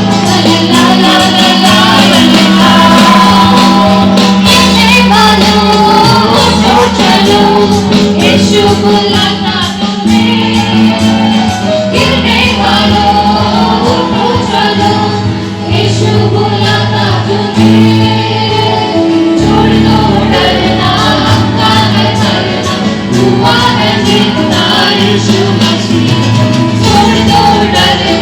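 Gospel song with choir singing over sustained bass and chords and a steady percussive beat.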